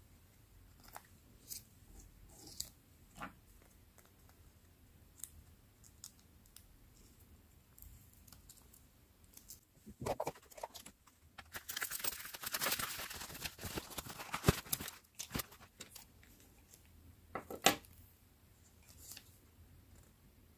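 Close-up paper-craft handling sounds: scattered light clicks and taps of metal binder clips and small paper pages, then, just past the middle, a few seconds of dense scratchy paper rustling and scraping with sharp clicks, and a short cluster of clicks near the end.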